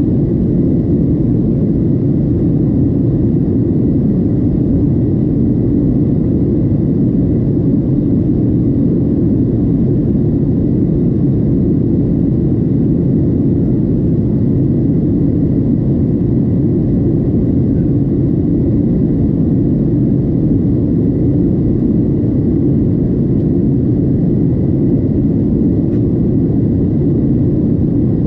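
Steady cabin noise inside a Boeing 737-700 in flight: the low rush of airflow and its CFM56-7B turbofan engines, unchanging throughout, with a faint steady high whine above it.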